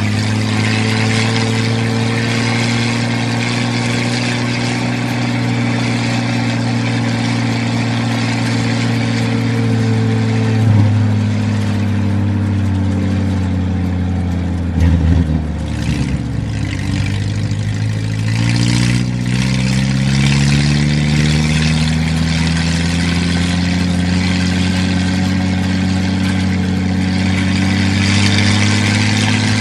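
Old Jeep's engine running while driving. Its pitch sinks slowly for about fifteen seconds as it slows, a few knocks come around the middle, then it rises steadily again as it picks up speed.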